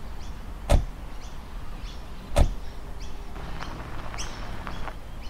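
Doors of a Toyota police jeep slamming shut twice, about a second and a half apart, over a faint steady engine hum, with birds chirping.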